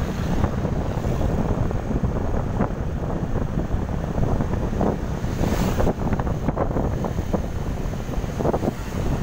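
Wind buffeting the microphone of a moving motorcycle, a steady rush that rises and falls unevenly, with the bike's engine and road noise beneath it.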